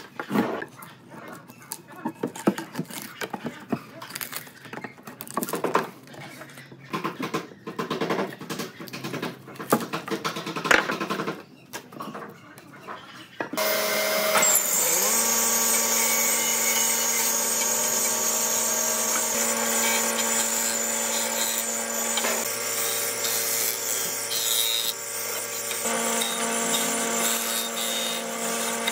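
Irregular knocks and clicks of hand work on wood. About halfway through, a woodworking power tool starts abruptly and runs loud and steady at an even pitch.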